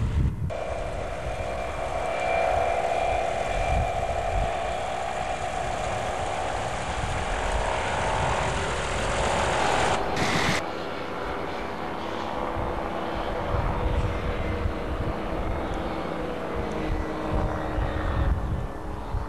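Ultralight aircraft engines and propellers droning in flight, their pitch sliding slowly up and down as they pass. The sound cuts abruptly about half a second in and again about ten seconds in.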